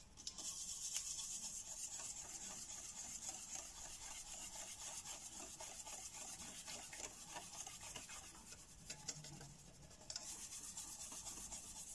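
Wire whisk beating pancake batter in a stainless steel bowl: a continuous quick scratchy rattle of the wires against the metal and through the batter. It eases off briefly about nine seconds in, then starts again.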